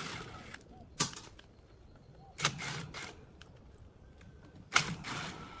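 Cordless driver running in short bursts on the rusty bolts that hold the motor of an old industrial fan to its wire guard, about four bursts of a second or less each.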